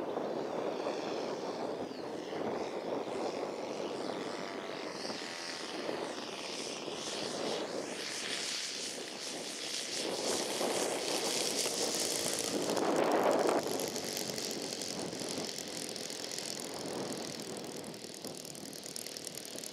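Engine and propeller of a radio-controlled model NDN Firecracker running at low throttle as the model comes in, lands and rolls out on grass, with a short louder burst about two-thirds of the way through.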